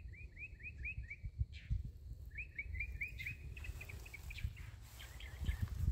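A songbird singing: a fast run of repeated quick notes that stops about a second in, a second run a little after two seconds, then looser scattered chirps. Under it is a low rumble with a few soft thumps on the microphone.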